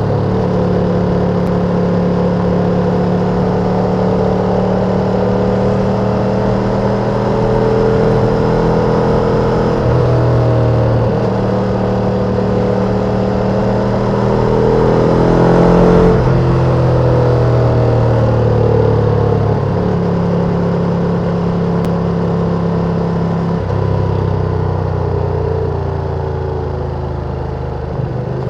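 Ducati sportbike engine running on the road while riding, the pitch stepping up and down several times through gear changes, loudest about halfway through.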